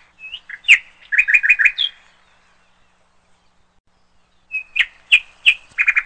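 A bird chirping in two short phrases about two and a half seconds apart. Each phrase is a few sharp chirps, then a quick run of four or five notes.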